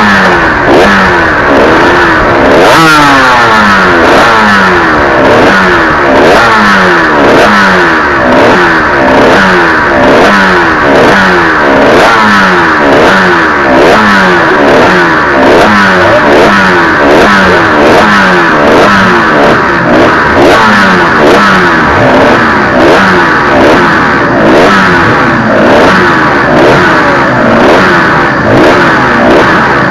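Yamaha TZR250 two-stroke twin motorcycle engine heard from on the bike, its revs climbing and dropping back over and over, about once a second, over a steady rush of wind noise.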